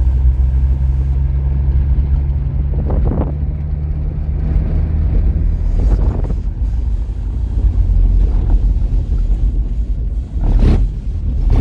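Chevrolet Kommando's straight-six engine droning steadily, heard from inside the cabin while driving on a gravel road, with road noise under it. Three short louder rushes of noise break through, about three, six and ten and a half seconds in.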